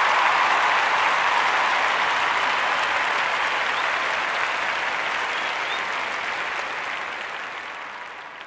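Crowd applauding, the clapping gradually fading out.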